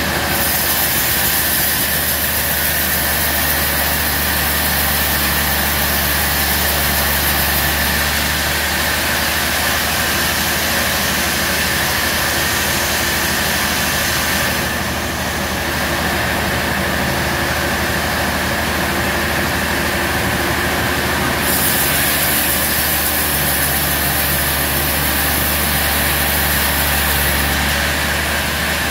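Band sawmill running with a steady mechanical drone and a steady high tone, its blade sawing through a large log. A high hiss swells for several seconds twice, about a second in and again past the twenty-second mark.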